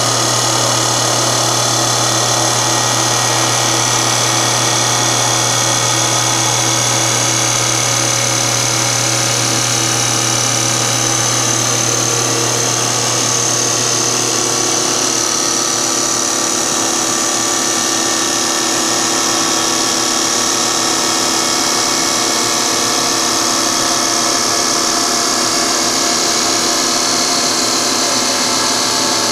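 CNC Auto-Motion Motioncat wood lathe turning a baseball bat: the spinning wooden blank is cut by the tool head in a steady, loud machining noise with several held tones. A low hum underneath fades out about halfway through.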